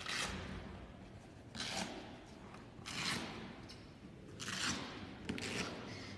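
Short scraping and rattling sounds from the volleyball net standard's hardware being handled, several in a row, a second or so apart.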